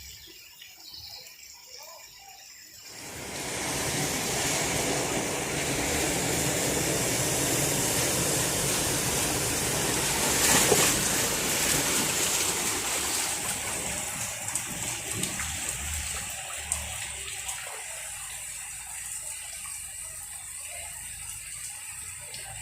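Heavy rain and running flood water on a street: a dense rushing hiss that swells about three seconds in and eases off in the second half.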